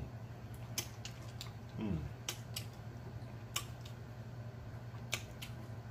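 A person eating chicken wings: scattered sharp, wet mouth clicks and lip smacks from chewing and licking sauce off fingers, with a brief 'mm' hum about two seconds in, over a low steady hum.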